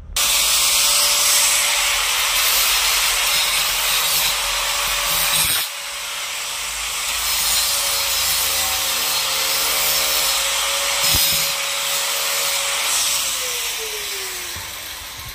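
Handheld electric angle grinder cutting through a rubber hydraulic breaker hose to take off its damaged end fitting: a steady motor whine over a loud grinding rasp. The sound drops off sharply for a moment about five and a half seconds in, then the cutting goes on a little quieter. Near the end the grinder is switched off and its whine falls away in pitch as it spins down.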